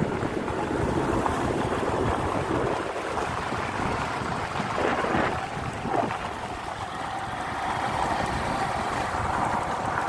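Wind rushing over the microphone of a moving motorcycle, with the engine running underneath at a steady level.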